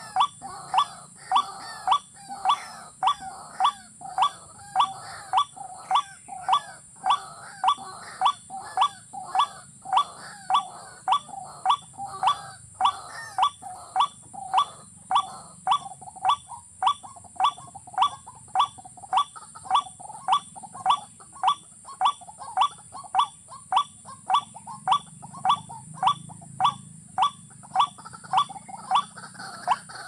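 Watercock giving a long, evenly spaced series of short, sharp calls, nearly two a second, with a steady high-pitched hiss behind them.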